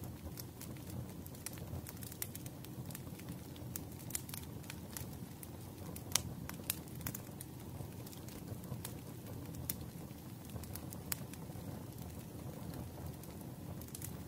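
Firewood burning in a fire: a steady low rush of flames with irregular sharp crackles and pops, the loudest about six seconds in.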